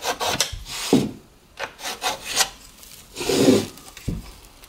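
Laminate flooring boards being handled: a few short scraping, rubbing strokes of board against board, with a couple of brief low thumps as a board is set down.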